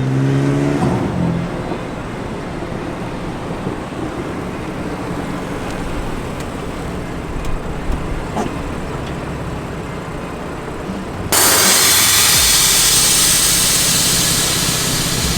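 BMW F82 M4's S55 twin-turbo straight-six, with catless downpipes and the stock exhaust, running steadily while the car is driven. About 11 seconds in, a much louder rushing noise comes in suddenly and holds for several seconds.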